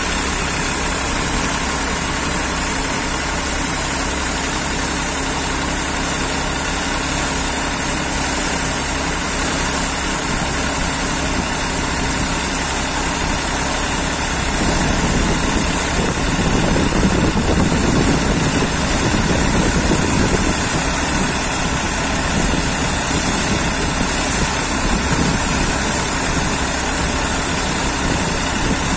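Wheat thresher driven by an Eicher 380 tractor, running steadily as wheat sheaves are fed into it: a continuous loud mechanical din of engine and spinning threshing drum. It grows louder and deeper from about 15 to 21 seconds in, then settles back.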